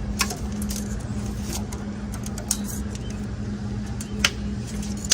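A steady low hum under a few sharp metal clinks and knocks, about four spread through, as steel roll-cage tubing and tools are handled.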